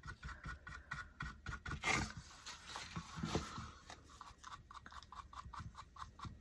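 A brush scrubbing and dabbing black finishing wax onto the edges of a painted piece in quick short strokes, several a second, with one louder scrape about two seconds in.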